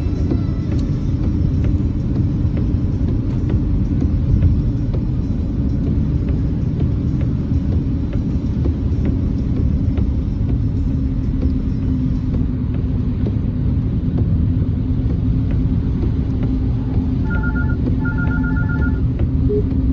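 Steady low rumble of a car driving, heard from inside the cabin. Near the end, a brief electronic beeping repeats a few times.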